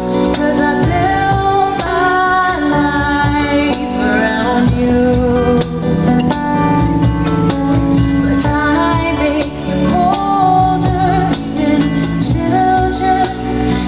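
A woman singing a slow melody through a microphone, accompanied by strummed acoustic guitars.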